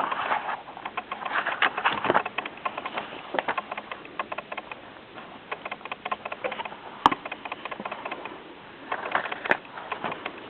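Paper pages of a softcover book being handled and turned by hand: an irregular run of small rustles and clicks, with a couple of sharper ticks along the way.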